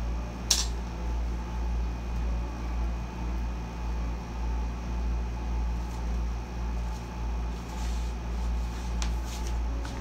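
Air conditioner running at full blast, a steady low hum that throbs evenly. A sharp click about half a second in, and a few faint scrapes near the end.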